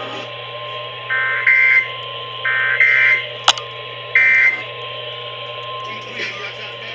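Three short buzzy bursts of Emergency Alert System SAME header data, the digital code sent ahead of an alert, here a National Weather Service flash flood warning. A faint steady tone runs underneath, and a single sharp click comes about halfway through.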